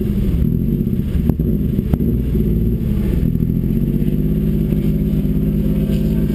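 Car engine running steadily at close range, its revs drifting slightly up and down, with two sharp clicks between one and two seconds in.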